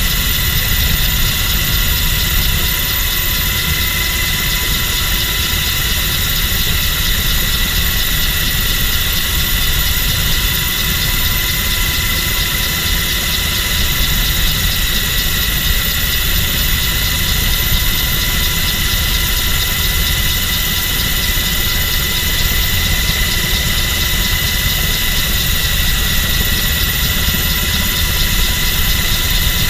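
Inside the cabin of an MH-60 Jayhawk helicopter in steady flight with the door open: the loud, even rumble of the rotors and twin turbine engines, with a steady high whine over it.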